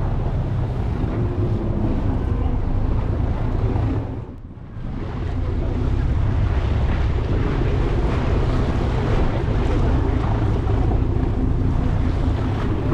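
Motorboat engine running under heavy wind buffeting the microphone, with the rush of water against the hull. The noise dips sharply for a moment about four seconds in.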